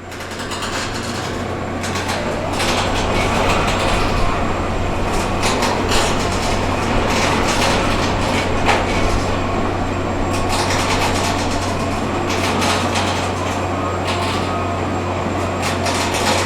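Subway construction site noise: a steady low machine drone under a dense din, broken by frequent irregular knocks and clatter. It fades up over the first couple of seconds.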